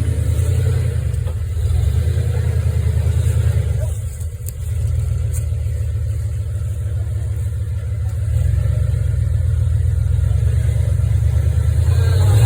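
A vehicle engine running with a deep, steady rumble. It eases off about four seconds in, then picks up again and is loudest near the end.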